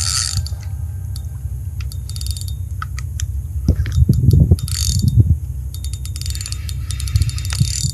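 Spinning reel cranked in short spells, its gears and anti-reverse giving a rapid fine clicking, with a few low handling thuds about halfway through, over a steady low rumble.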